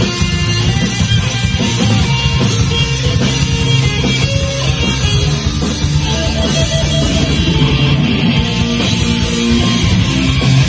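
Rock band playing loud at a rehearsal: electric guitar riffing over bass and drums.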